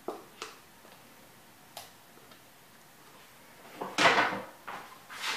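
Kitchen handling noises: a few light sharp clicks and knocks, then a louder, longer noise about four seconds in, followed by a couple more knocks.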